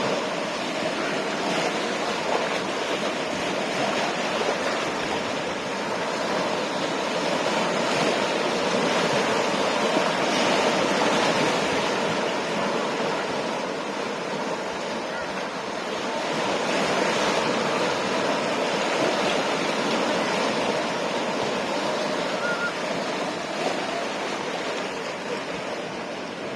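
Ocean surf breaking and washing on the shore, a steady rush of water that swells and eases as the waves come in.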